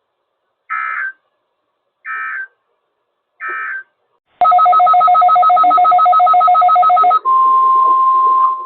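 NOAA Weather Radio alert signalling: three short bursts of SAME digital data tones, typical of the end-of-message code after a test. From about halfway, a fast-pulsing two-tone beep follows for about three seconds, then the steady 1050 Hz weather radio warning alarm tone starts.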